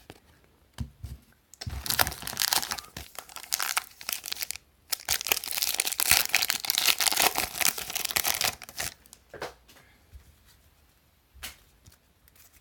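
A trading card pack's wrapper being torn open and crinkled, in two stretches of about three seconds each with a brief pause between, followed by a few light clicks as the cards are handled.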